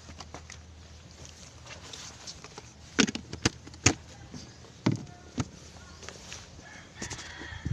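A handful of sharp knocks and clunks, about five in quick succession a few seconds in, as fishing gear is handled in a small boat, over a faint steady low hum.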